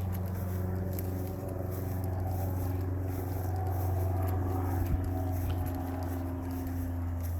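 A steady low engine hum, with a faint knock about five seconds in.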